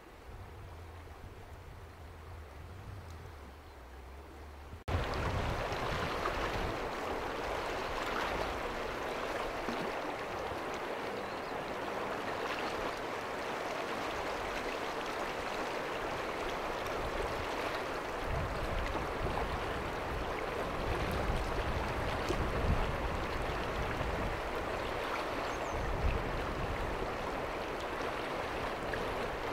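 River water rushing steadily over the riverbed. For the first five seconds it is quiet, with a low hum. About five seconds in it jumps abruptly to a loud, even rush.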